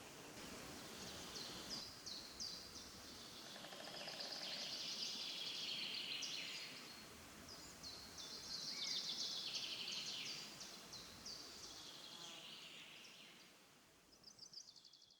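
White-backed Woodpecker nestlings begging in the nest hole: a continuous high, buzzy chatter that swells twice and fades near the end, closing with a short rapid trill.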